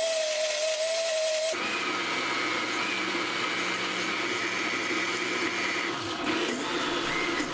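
Countertop jug blender motor running as it purées roasted red peppers, cheese and nuts into a thick pesto: a steady whine at first, then about one and a half seconds in a rougher, churning sound that runs on steadily.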